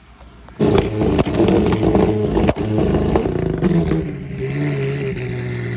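McLaren sports car engine revving hard. It comes in suddenly about half a second in with sharp crackles over it, then settles into a steadier drone as the car pulls away.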